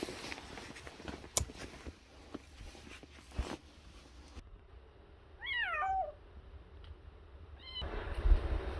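A cat meowing: one drawn-out meow that falls in pitch about five and a half seconds in, then a brief second call near the end. Two sharp clicks come earlier.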